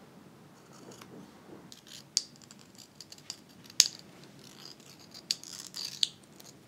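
Small scissors snipping a strip of fabric, then a spool of thread handled and thread drawn off it: a few sharp clicks with light rustling, the loudest click a little under four seconds in.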